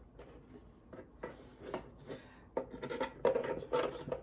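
Hard 3D-printed plastic helmet parts rubbing, scraping and knocking against each other as they are handled and fitted together, growing louder in the second half.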